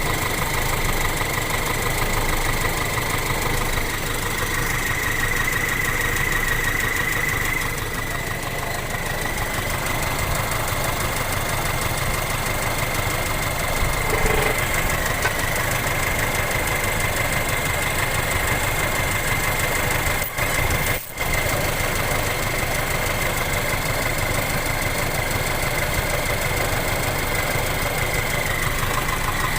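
Toyota Kijang Super's 5K four-cylinder petrol engine idling steadily with the AC compressor belt removed and no snoring knock, which the owner traces to a dry bearing in the belt-driven AC pulley. A steady high-pitched whine runs over the idle.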